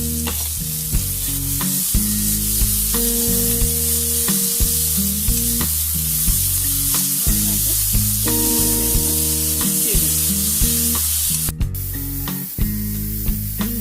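Chopped onion, ginger and curry leaves sizzling in hot oil in a pan while being stirred, the spoon clicking against the pan about once a second.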